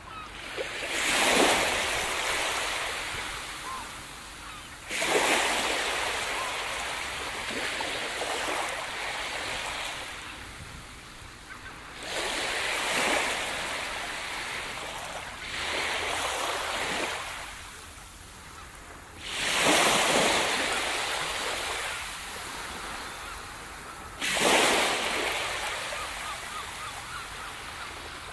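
Ocean surf: six waves break one after another, each a surge of hiss that rises quickly and then slowly fades.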